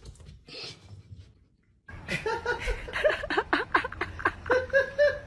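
A person laughing hard: a quick run of high-pitched laughs starts about two seconds in and ends in a few longer, drawn-out notes.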